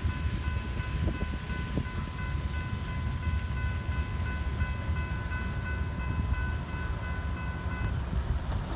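Railroad crossing warning bell ringing steadily while the crossing gates rise, then stopping about 8 seconds in as the signal clears. A low rumble, like wind on the microphone, runs underneath.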